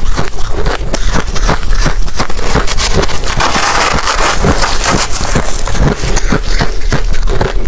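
Ice being chewed close to the microphone: loud, rapid, irregular crunching, with a denser grinding crunch around the middle as the ice is ground down.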